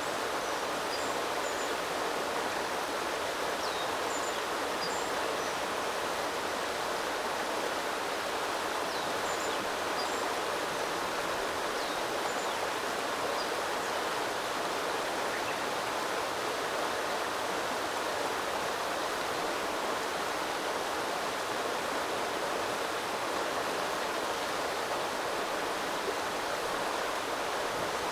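A small river's water flowing over stones, a steady rushing burble. Faint, brief bird chirps sound now and then.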